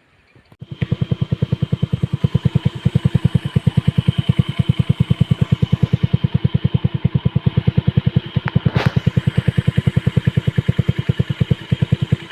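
A small engine starts up about half a second in and runs at a steady idle with an even, rapid putter of about ten beats a second. A short click and a brief rasp come about two thirds of the way through.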